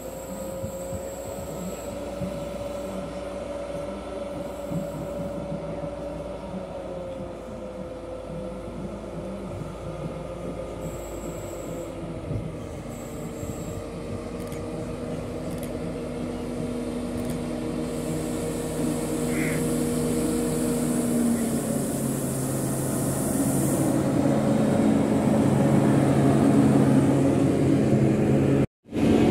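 Diesel locomotive's engine running with a steady humming note as it approaches, growing steadily louder. About two-thirds of the way in the engine note shifts lower and stronger as the locomotive draws near and passes close, with a brief cut-out of the sound just before the end.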